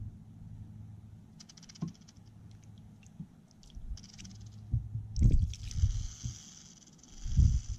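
Speckled rattlesnake rattling: a few short buzzes, then a continuous rattle buzz from about five seconds in, the defensive warning of a frightened snake. Wind gusts rumble on the microphone.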